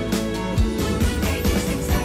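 Instrumental trot backing music with bass and a steady drum beat, with no singing.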